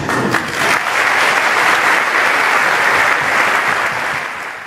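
Audience of seated martial-arts students applauding: dense, steady clapping that swells in just after the start and eases off slightly near the end.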